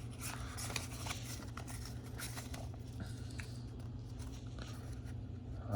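Pokémon trading cards being handled and shuffled in the hands, with faint scattered clicks and rustles of card stock over a steady low hum.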